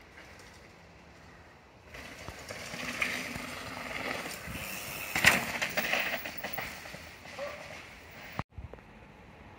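Mountain bike coming down a dirt trail and passing close by: tyres rolling over the dirt and the bike rattling, getting louder about two seconds in, with a sharp knock about halfway through. The sound cuts out briefly near the end.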